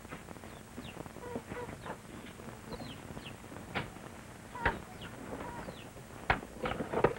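Chickens calling in a farmyard: short falling chirps every second or so, with a few sharp knocks in the second half, the loudest near the end.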